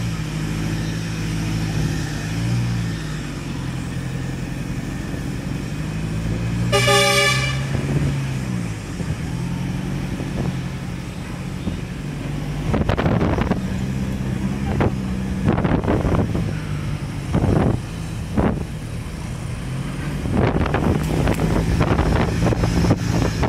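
Safari jeep's engine running steadily on the move, with one short horn toot about seven seconds in. In the second half, a run of knocks and rattles.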